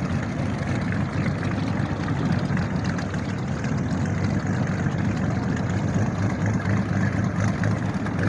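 Motorboat engines running slowly at parade speed: a steady low rumble that neither rises nor falls.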